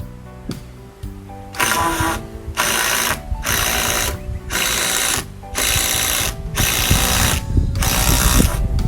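Cordless drill driving screws in about seven short bursts, each under a second, with brief pauses between, over background music.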